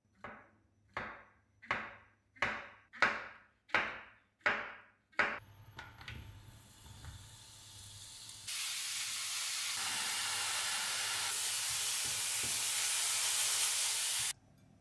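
A chef's knife slicing through a mushroom onto a wooden cutting board: eight crisp cuts, evenly about two-thirds of a second apart. Then sliced mushrooms sizzling in a frying pan, a loud steady sizzle from about halfway through that cuts off suddenly near the end.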